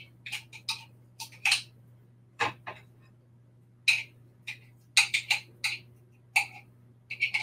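A spoon scraping and clicking against a jar as solid coconut oil is scooped out: short, irregular clicks and scrapes, over a low steady hum.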